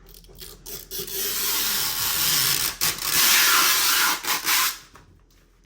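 Protective plastic film or sticker being peeled off the new vanity's surface, a long ripping hiss lasting about four seconds with a short break partway through.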